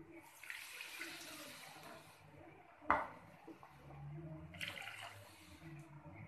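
Water poured in a stream into a metal wok of fried spice paste, rushing for about two seconds, then again briefly near the end. A single sharp knock about three seconds in.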